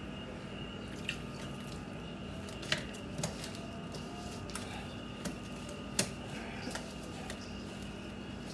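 Hands mixing and kneading wet flour dough for dumplings in a stainless steel bowl: soft squishing, with a few sharp clicks and taps against the metal bowl, over a steady faint hum.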